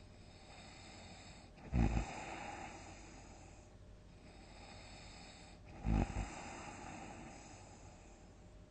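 Loud snoring: two short, deep snores about four seconds apart, with quieter breathing between them.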